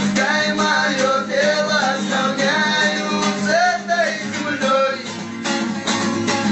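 A man singing over a strummed acoustic guitar; the voice stops about five seconds in and the guitar carries on alone.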